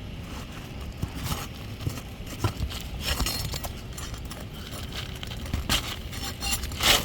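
Irregular scrapes and clicks of a tool prying at nailed 3-tab asphalt shingles to work their nails loose, with the loudest scrape near the end.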